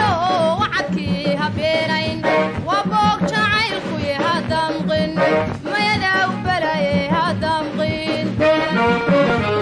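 Somali song playing, in a stretch without sung words: a wavering, ornamented lead melody full of pitch bends over a steady repeating backing.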